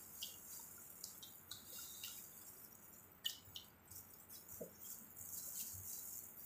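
Faint, irregular wet clicks and crackles of plastic-gloved hands pulling apart saucy crab and shrimp shells.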